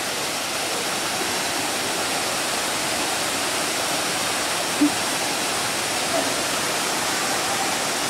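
Waterfall pouring into a rock pool: a steady, even rushing of water, with one short faint sound about five seconds in.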